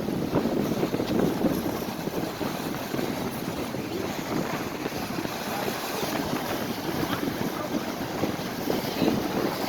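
Strong wind buffeting the microphone: a rough, gusting rush with no engine note standing out.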